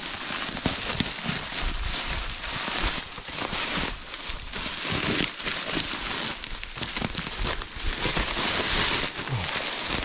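Footsteps crunching and crackling through dry grass, leaf litter and sticks, with brush and clothing rustling as someone pushes through the undergrowth.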